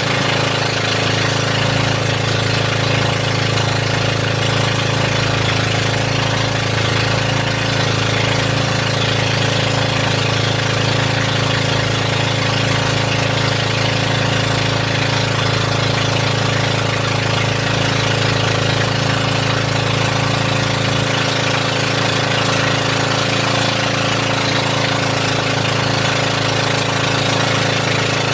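Boat engine running at a steady speed, a constant drone with even, unchanging pitch.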